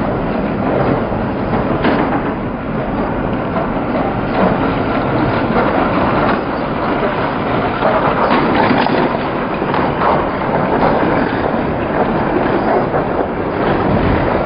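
A train running along its track: a steady rumble with faint, scattered clicks.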